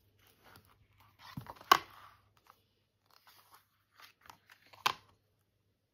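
A hardcover picture book being opened and its pages turned by hand: paper and card rustling and scraping, with a sharp tap about a second and a half in and another near the end.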